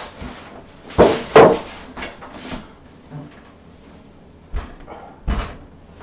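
Fractal Design Define 7 steel computer case being handled: two loud clunks about a second in, then two dull thumps near the end as it is set down on the floor.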